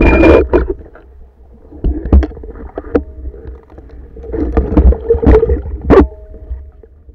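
Underwater, through a camera housing: the tail of a speargun shot, then a speared wild common carp (sazan) thrashing on the spear, with water churning and sharp knocks of the shaft, in several irregular bursts over a steady low rumble.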